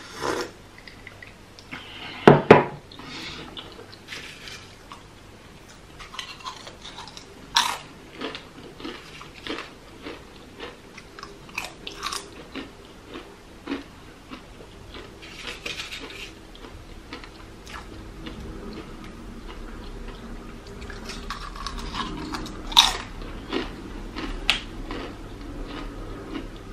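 Crunchy plantain chips being bitten and chewed: a run of short crisp crunches, with a few louder sharp knocks, the loudest about two and a half seconds in.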